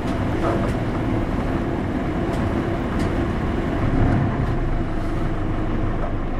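Hino Poncho (SDG-HX9JLCE) small bus running, its diesel engine and road noise steady, with a few light rattles and a slight swell about four seconds in.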